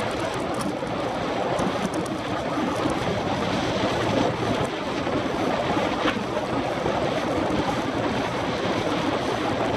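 Steady rush of wind on the microphone of a bicycle-mounted action camera at about 28–30 mph, mixed with the tyres rolling on a concrete velodrome track.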